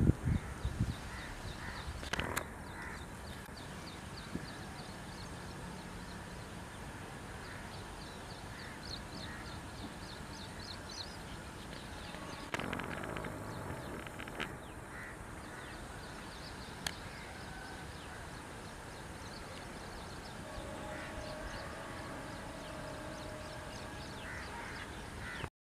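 Birds calling over a faint, steady outdoor background, with runs of quick high chirps and a few harsher caws.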